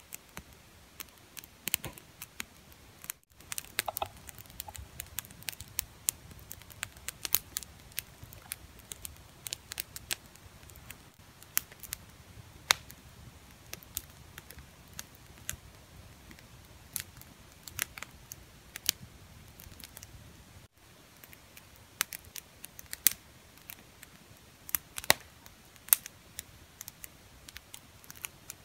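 Campfire of dry sticks and twigs crackling, with irregular sharp pops and snaps.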